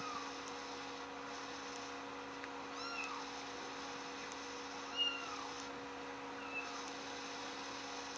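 Kitten-mewing ringtone playing from a phone: four short, high mews, each rising then falling in pitch, a couple of seconds apart, the third the loudest, over a steady low hum.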